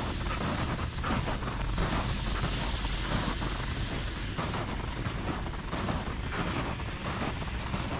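Footsteps crunching through packed snow, a continuous run of crackly crunches, over a low rumble.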